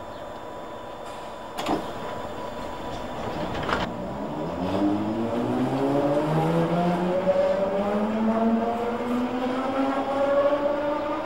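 Electric train's traction motors whining, rising steadily in pitch and getting louder as the train pulls away. Before the whine starts there are two sharp clunks.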